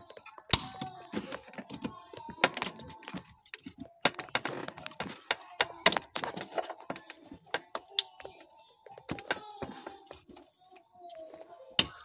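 Irregular clicks and knocks of plastic and metal parts being handled as the neutral/gear selector switch and its wiring connector are worked on atop a Peugeot 307 CC's automatic gearbox, with a few sharper knocks about half a second in, around four and six seconds in, and near the end.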